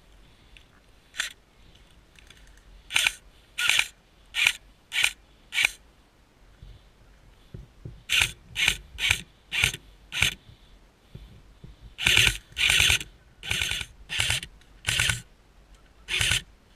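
M4-style airsoft rifle firing short bursts, about seventeen in all, in three strings with gaps of about two seconds between them.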